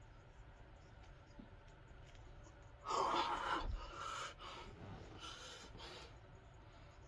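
A man's loud gasping exhale of exertion at the end of a set of dumbbell raises, about three seconds in, with a low thud inside it, followed by several weaker, fading breaths as he catches his breath.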